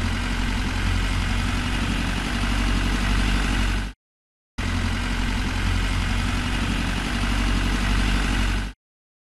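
Recorded engine sound of a motor idling steadily, played in two stretches of about four seconds each. Each stretch starts and cuts off abruptly, with about half a second of dead silence between them.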